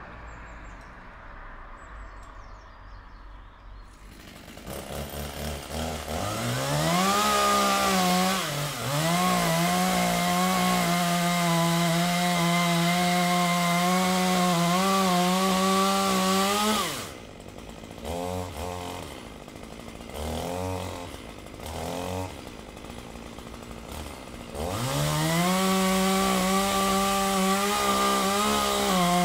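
Two-stroke chainsaw, quiet at first, revving up to full throttle about five seconds in and holding steady while cutting a tree. It drops back to low, uneven revs with short blips for several seconds, then goes back up to full throttle near the end.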